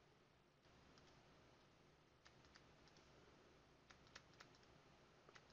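Near silence with a few faint, scattered clicks of a stylus tapping on a pen tablet as digits are handwritten.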